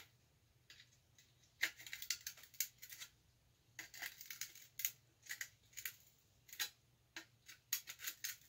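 Light, irregular clicks and taps of a screwdriver prying at an Altoids tin's thin tinplate lid and hinge to work the lid off.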